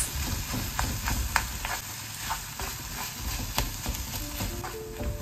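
Ground prawn stuffing sizzling in a hot pan while a spatula stirs it, with scattered scrapes and taps of the spatula against the pan.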